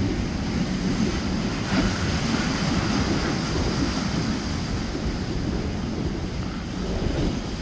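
Wind buffeting the microphone over the steady wash of waves in the inlet.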